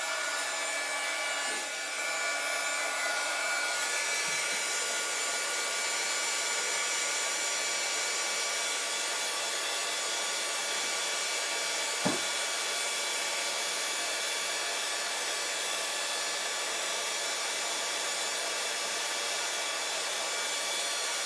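Craft heat gun blowing steadily, its fan motor adding a steady whine of several fixed tones. A single sharp click about halfway through.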